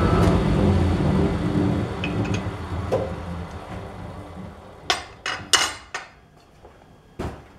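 Metal lathe spinning down after being switched off, its running sound fading away over the first few seconds. Then a quick series of sharp metal clanks and knocks, with two more near the end, from hand work at the stopped chuck and tool post.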